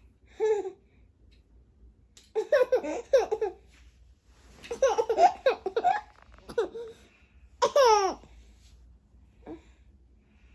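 A baby laughing and babbling in several short bursts, with a high squeal that falls in pitch about eight seconds in.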